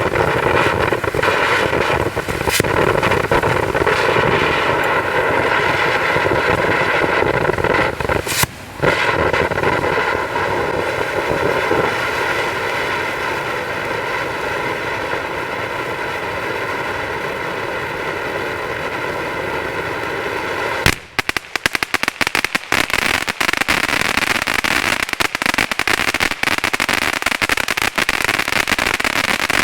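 Black Cat Fish Crazy fountain firework burning: a steady loud hissing spray with a held whine of several tones, dipping briefly about eight seconds in. About twenty-one seconds in it switches to its crackle finale, dense rapid crackling pops.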